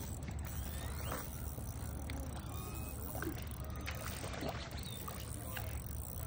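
Hooked trout splashing and thrashing at the lake surface, over a steady low rumble.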